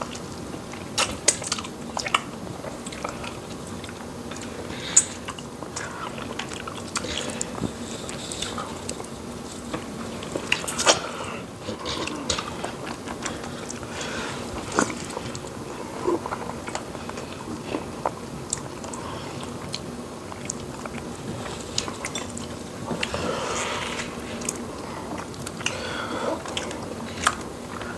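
Two people eating fufu and soup by hand close to the microphone: chewing, lip smacking and finger licking, with scattered sharp wet mouth clicks.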